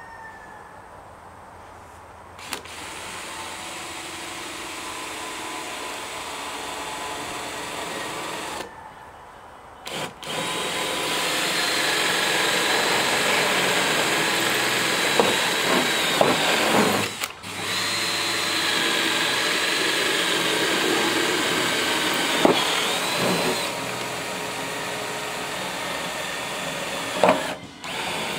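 Power drill running against a corrugated steel roofing panel in long stretches, with a steady high whine. It stops briefly about nine seconds in and again about seventeen seconds in.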